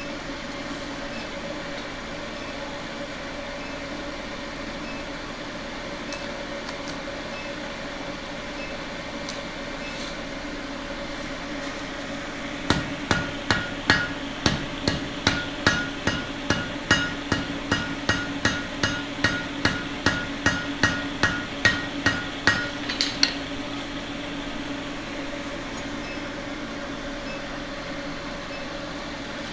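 Blacksmith's hammer striking steel on an anvil, forging: a quick run of about thirty blows, roughly three a second, each with a short metallic ring. The run starts near the middle and stops several seconds before the end. A steady mechanical hum runs underneath throughout.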